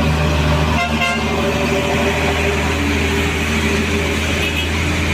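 Heavy truck diesel engine running with a steady low drone, and a brief horn toot about a second in.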